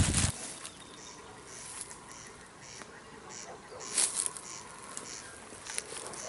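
Dusk riverside ambience: a small campfire crackling with a few sharp snaps, the loudest about four seconds in, under a regular series of short high chirps about twice a second. A brief loud rustle cuts off at the very start.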